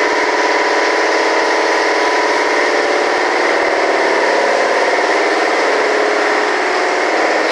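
Steady mechanical drone of running shop machinery, a loud even hum with several steady tones in it.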